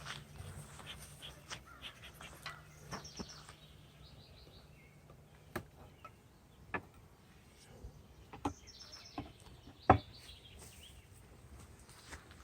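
Small birds chirping in short runs of quick high notes, with a low steady hum that stops about halfway through. Scattered sharp knocks, the loudest about ten seconds in.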